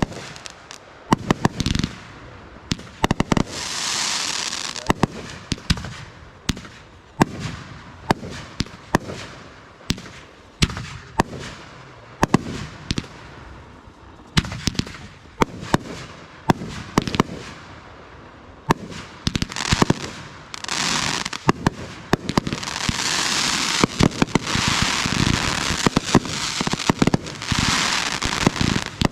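Aerial fireworks going off in quick succession: many sharp bangs of launches and shell bursts, with stretches of crackling around four seconds in and again through most of the last nine seconds.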